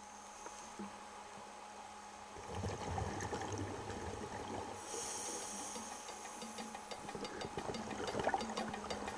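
Muffled underwater noise picked up through a camera housing during a dive: water rushing against the housing from a couple of seconds in, with a high hiss starting suddenly about five seconds in. A faint, evenly ticking beat of background music comes in during the last two seconds.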